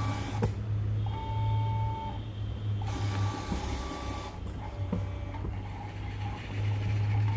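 SkyCut C24 vinyl cutting plotter's motors whining as the tool carriage travels in short moves across the printed vinyl sheet, starting and stopping with a few clicks, under a steady low hum. The plotter is reading the sheet's registration marks before a recut.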